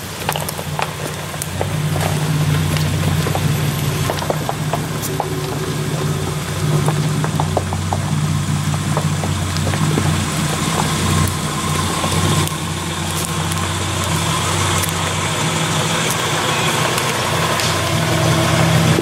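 Jeep Wrangler YJ engines running at low revs as the Jeeps crawl up a rocky trail, a steady low drone that rises and falls slightly. Scattered sharp clicks and snaps come through the first few seconds.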